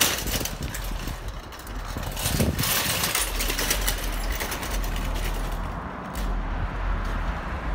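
Outdoor street noise: a steady low rumble with a few sharp knocks and rattles.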